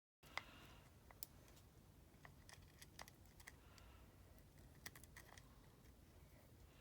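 Faint, scattered small clicks and taps of handheld repair tools on a smartphone's small parts, over low room hiss, after a brief dead silence at the start.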